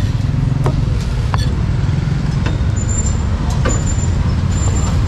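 Steady low rumble of motor traffic passing on the street, with a few sharp knocks at irregular intervals.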